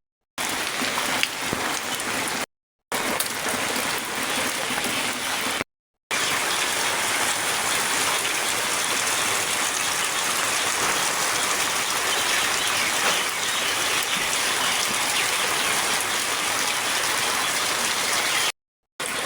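Heavy rain falling, a steady dense hiss. It breaks off into short gaps of total silence, three in the first six seconds and one near the end.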